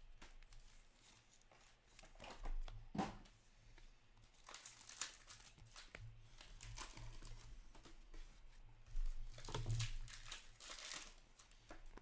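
Trading-card pack wrappers crinkling and tearing open by hand, with cards rustling as they are handled, in irregular bursts loudest a few times through the stretch.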